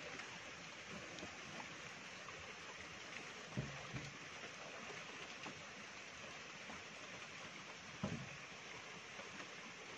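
Steady low hiss, broken by two dull low thumps, one about three and a half seconds in and one near eight seconds.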